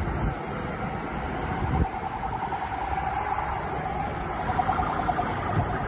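Distant emergency-vehicle siren warbling steadily from about two seconds in, over the rumble of road traffic passing close by.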